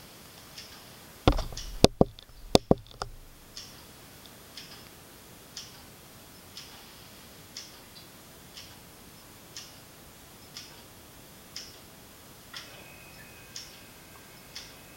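Saeco Vienna Deluxe super-automatic espresso machine just after power-on, making a sharp tick about once a second, with a burst of several loud clicks and knocks over a low thud about a second in. A faint steady whine joins near the end. These are the weird noises whose cause the owner does not know.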